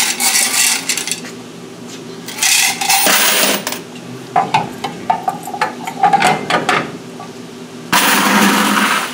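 Quarters rattling and clinking in a metal dryer coin box as it is pulled out and handled, with sharp metal clicks and clatters between several spells of coins shifting; the loudest clatter comes near the end.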